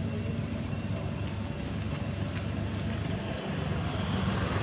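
Steady low mechanical rumble with a faint even hiss over it.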